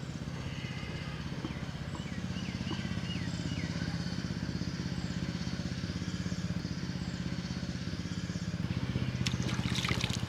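A small engine running steadily at an even low pitch, with a few faint high bird chirps in the first few seconds and a burst of clicking near the end.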